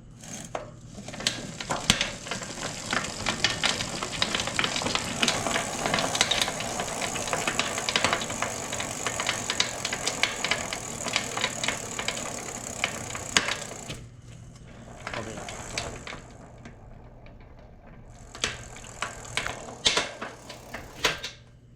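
Rear wheel hub of an upturned bicycle turned hard through the pedals. It gives a dense, rapid clicking rattle that drops away about two-thirds through and comes back briefly near the end. This creaking is the sign of hub ball bearings short of grease or with a broken ball cage, as the owner explains it.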